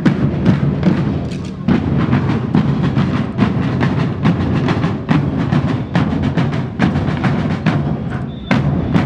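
A parade band playing a march, its drums striking a steady beat of about two to three strokes a second.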